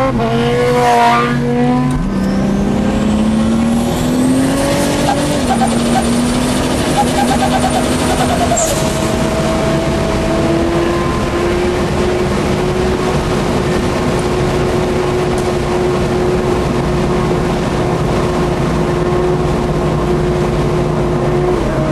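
A high-revving vehicle engine at full throttle through the gears, its pitch climbing and dropping at two shifts, then rising again and holding steady at speed, under a constant rush of wind and road noise.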